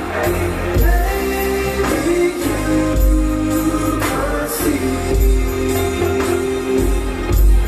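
Recorded song with singing playing as the backing track for a dance: long held notes over a deep bass beat about every two seconds.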